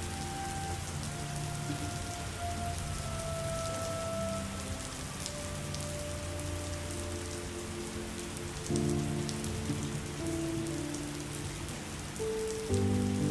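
Steady rain falling, with scattered sharp drop ticks, over low held tones that shift in pitch a few times.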